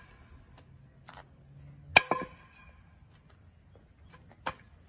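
Sharp clinking impacts with a brief ringing tone: a quick pair about two seconds in and a single fainter click near the end.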